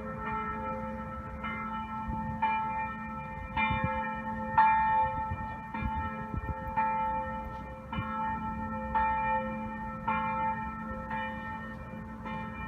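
Church bells ringing, struck about once a second, each stroke's tone hanging on under the next. This is the regular evening ringing that sounds at 6 a.m., noon and 6 p.m.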